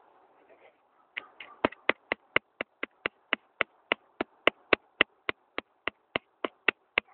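Rapid, fairly even tapping clicks, about four a second, starting about a second in and keeping on steadily.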